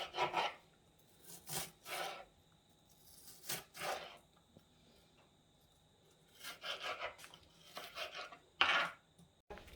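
Knife sawing through food on a wooden cutting board: short rasping strokes, often in pairs, with pauses between them.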